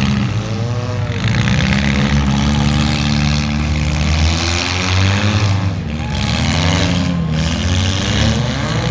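Demolition derby car engines revving loudly, their pitch rising and falling again and again.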